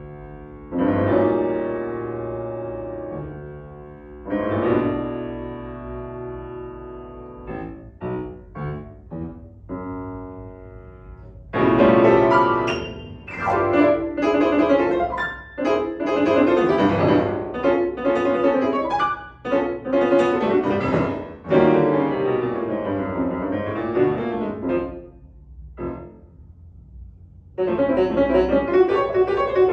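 Solo grand piano playing classical music: soft sustained chords, then a run of short detached notes, then a loud, dense passage with sudden accents. It drops almost to silence briefly before a loud entry near the end.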